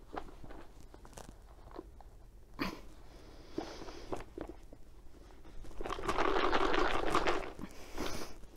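Small cardboard game box handled by a hand puppet's cloth hands as it fails to get the lid open: scattered soft taps and scrapes on the cardboard, then a louder scraping rustle lasting about a second and a half, around six seconds in.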